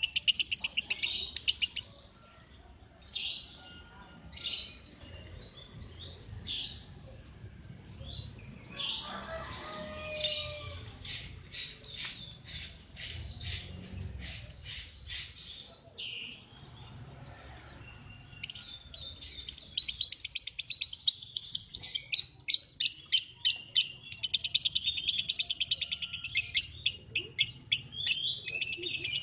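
Lovebird singing: runs of rapid high chirps broken by a few single calls and a short lull, with long fast chirping trills that get louder and denser over the last third.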